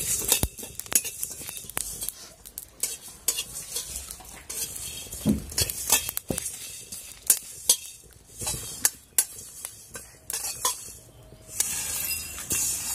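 Steel spatula scraping and clinking against a steel kadai as whole spices are dry-roasted and stirred, in irregular sharp clicks and scrapes. Near the end the roasted spices are tipped out of the kadai into a glass bowl.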